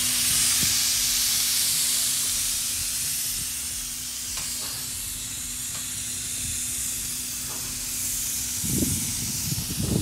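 Airless spray gun spraying liquid roof coating: a continuous high hiss of atomised paint from the nozzle over a steady low hum.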